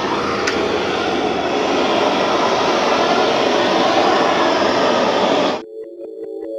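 Hose-fed gas blowtorch burning with a steady loud hiss as its flame heats a laminate panel. The hiss cuts off abruptly about five and a half seconds in, and electronic synth music with a ticking beat takes over.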